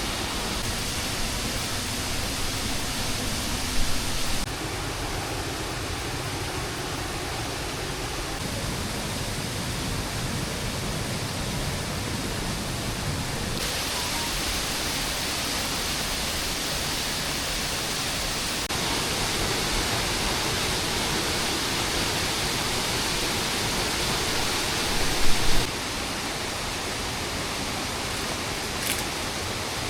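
Steady rushing noise of rain or running water in the forest, its character shifting abruptly several times. A brief louder knock comes about 4 seconds in, and a short louder clatter about 25 seconds in.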